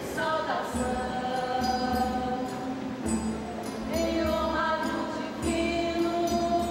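Folia de Reis group singing a hymn in several voices on long held notes, accompanied by guitar.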